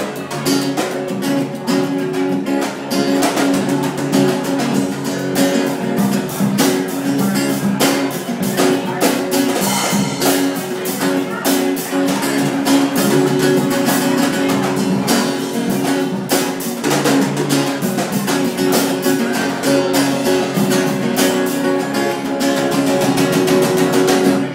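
Live acoustic guitar strummed with drums keeping a steady beat, an instrumental stretch without singing.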